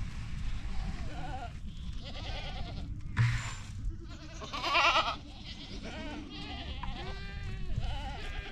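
Several goats bleating over and over, their wavering calls overlapping, with one loud bleat about five seconds in. A single sharp knock comes about three seconds in.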